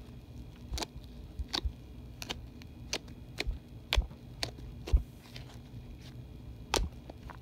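Fingers squeezing and poking a lump of white homemade slime, making irregular sharp clicking pops, about one or two a second.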